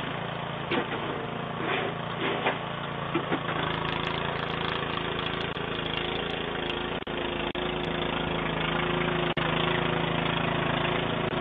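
A small engine or motor running steadily, heard through a doorbell camera's microphone, with a few short sharp sounds over it in the first three seconds.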